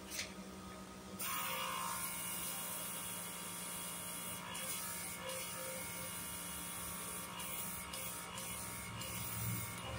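A small electric motor switches on about a second in and runs steadily with a high-pitched whir.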